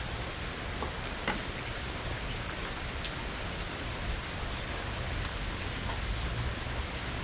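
Steady rain falling, with a few sharper ticks of single drops striking something close by.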